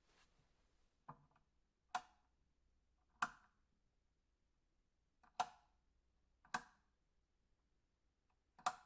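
A light switch being flipped, six sharp clicks spaced irregularly about one to two seconds apart.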